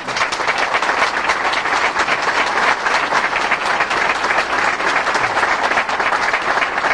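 Audience applauding: many hands clapping together in sustained, steady applause.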